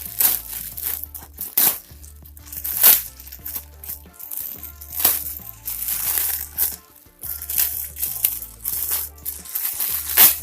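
A plastic courier mailer bag being torn and pulled open by hand: irregular crackling and crinkling of the plastic, with louder rips scattered through. Background music with a low, repeating bass line plays underneath.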